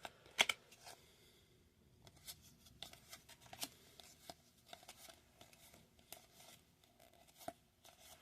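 Baseball trading cards being handled and flipped through one by one: a scattering of soft clicks and light taps, the two loudest about half a second in.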